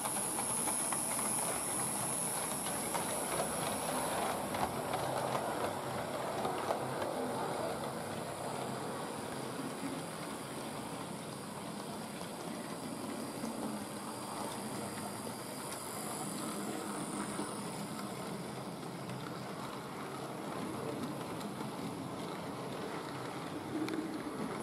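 OO-gauge model locomotives and coaches running on sectional track: a steady rattle of small wheels over the rails and rail joints, with a high thin whine near the start and again near the end.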